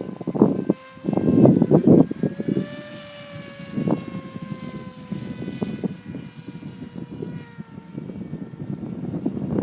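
The electric motor and propeller of a Dynam Hawk Sky RC glider flying past, a whine that slowly falls in pitch for several seconds. Wind gusts buffet the microphone in the first two seconds and again near the end.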